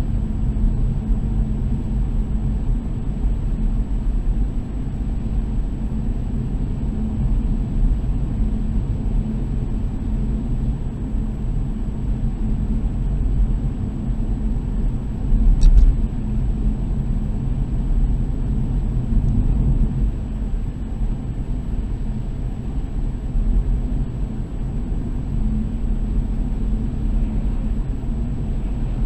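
Car driving on a concrete slab road: a steady low rumble of tyres and engine, with one sharp thump about halfway through.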